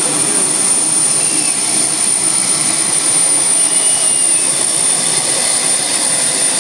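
Jet turbine engine on a John Deere pulling tractor running under full power as it drags the sled: a loud, steady rush of noise with a high whine that holds one pitch.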